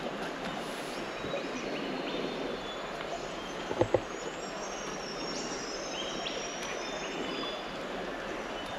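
Steady rush of running water, with short high bird chirps here and there. Two sharp knocks about four seconds in stand out above it.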